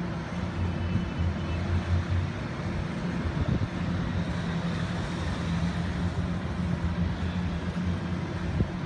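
A large motor yacht's engines droning steadily at low cruising speed, a low hum over an even hiss.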